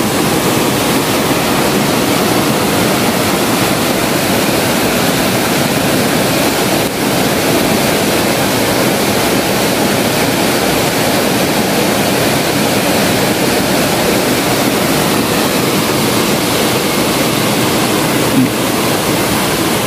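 Fast-flowing river water rushing over rocks in a steady, loud rush; the river is running high and strong after a night of rain.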